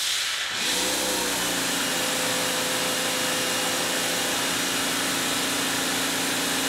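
Teande electric pressure washer running with the trigger held, spraying through a 15-degree nozzle: a steady hiss of water spray, with the motor and pump's steady hum joining in just under a second in.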